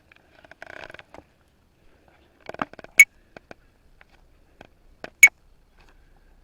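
Puppy gnawing and chewing on a wooden stick: scattered small clicks and taps, with two sharp clicks about three and five seconds in.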